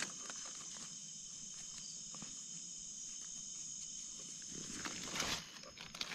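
Steady chorus of insects, with soft scraping and rustling of soil and dry leaves as mushrooms are dug out by hand, loudest about five seconds in.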